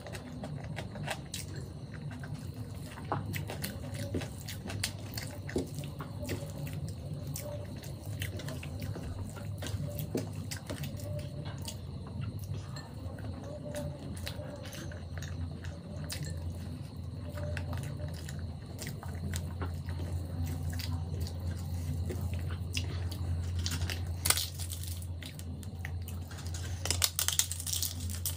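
Close-up eating sounds of khichdi eaten by hand: wet chewing and mouth smacks, small clicks, and fingers squishing soft rice and lentils on a steel plate. Near the end, crisp crackling as papad is crushed by hand into the food. A steady low hum sits underneath.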